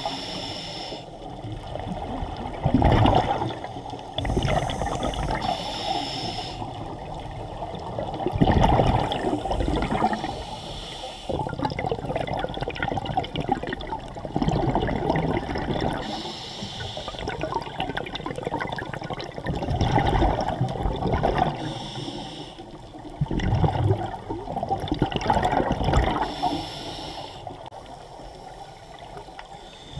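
Scuba regulator breathing recorded underwater: a short hiss of inhalation through the demand valve, then a longer rumbling gush of exhaled bubbles, the cycle repeating about every ten seconds.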